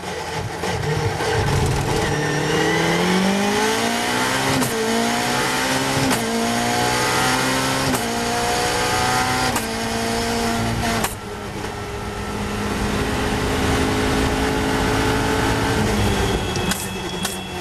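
Caterham's Cosworth 2.4 four-cylinder race engine accelerating hard through the gears, heard from the open cockpit: the note climbs in pitch and drops back at each of about four quick upshifts, then holds a steadier, slowly rising note at high speed before easing off near the end.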